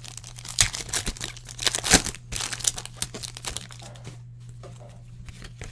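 Foil wrapper of a trading-card pack crinkling and tearing as the pack is ripped open and the cards pulled out: a flurry of crackles for the first three seconds, then quieter handling.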